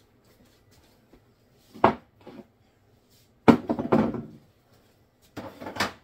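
Kitchenware being handled and set down on a counter: a short knock about two seconds in, a louder clattering bang that rings on for about a second, and another clatter near the end.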